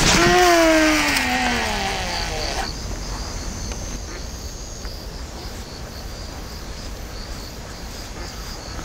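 Insects chirping steadily in a regular pulse. At the start a loud, voice-like cry slides down in pitch for about two and a half seconds.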